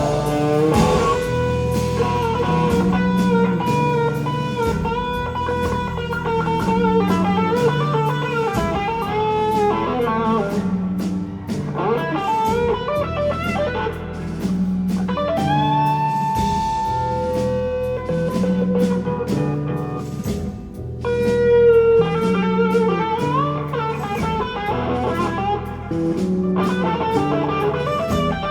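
Live rock band playing, led by an electric guitar with long held, bending notes over a repeating bass line and drums.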